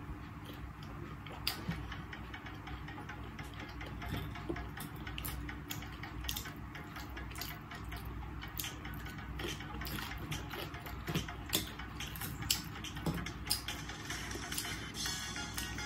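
Close-up eating sounds: chewing and wet mouth sounds from fishballs and fried potatoes, with many sharp clicks of a metal fork against the bowl.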